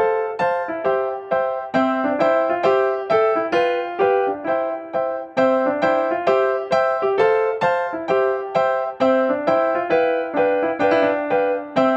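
Background music: a light, bouncy keyboard tune of quick, evenly spaced notes.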